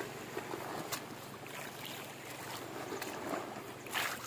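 Rubber boots wading through shallow muddy paddy water, sloshing with a few soft splashes, the loudest near the end.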